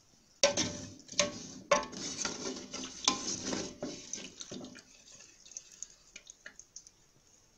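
A metal slotted skimmer clanks against a steel pot and stirs through frying oil as fried chebakia are scooped out. There are several sharp clanks in the first two seconds and a stretch of busy scraping and clattering, then lighter scattered ticks near the end.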